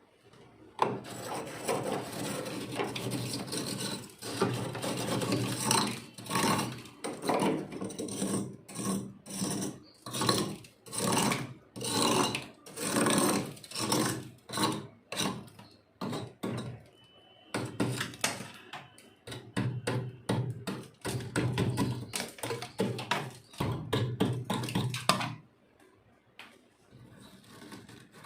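Freezer frost being bitten and chewed close to the microphone: wet, crunchy ice crunches, a dense burst at first, then a regular chewing rhythm of about one to two crunches a second, then dense crunching again, stopping near the end.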